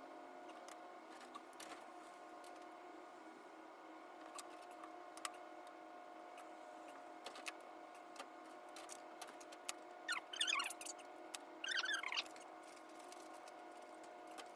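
Sped-up room sound from a sewing and pattern-drafting class: a faint steady hum with scattered small ticks and clicks, and two brief high chirps near the end.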